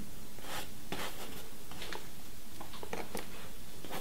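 Paintbrush stroking paint onto a canvas: a few short, irregularly spaced strokes over a steady background hiss.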